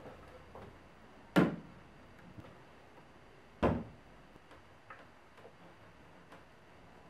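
Solid wooden cabinet set down and handled on a wooden workbench: two sharp knocks about two seconds apart, followed by a few light taps.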